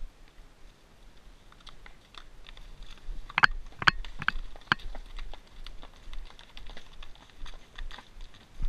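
Horses' hooves striking rocks and gravel at a walk: an uneven run of clicks and knocks, with a few louder strikes close together around the middle.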